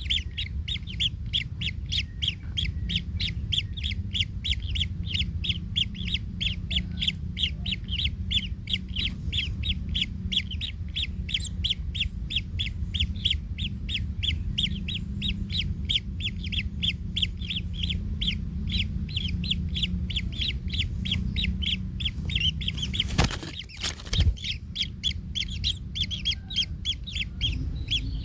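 Kingfisher nestlings calling in a rapid, unbroken series of short high chirps, about four a second, typical of begging chicks. A steady low rumble runs underneath, and two sharp knocks come near the end.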